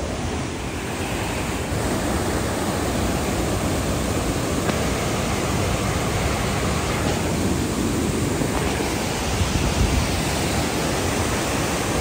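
Waterfall rushing steadily: a dense, even wash of falling water.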